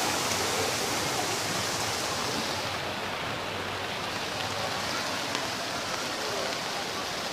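Steady rushing of rainwater gushing down a flooded street, with rain falling. The highest part of the hiss softens a little about three seconds in.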